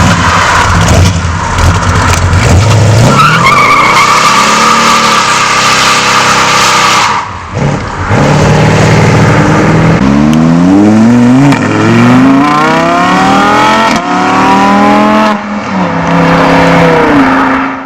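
Car engine revving hard with tyres squealing in a burnout: a long tyre squeal from about three to seven seconds in, then the engine note climbs repeatedly as the car accelerates away.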